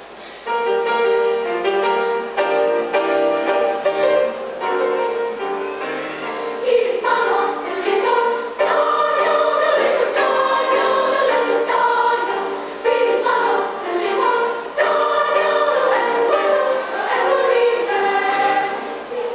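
Children's choir singing in several voice parts, starting about half a second in.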